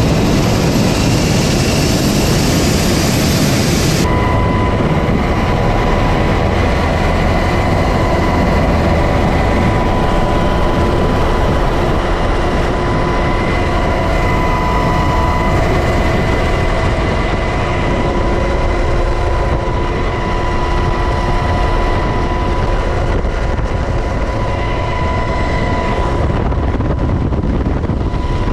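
UH-60 Black Hawk helicopter running: loud, steady rotor and twin-turboshaft engine noise. About four seconds in the sound changes abruptly, the high hiss falling away and a steady high whine coming in.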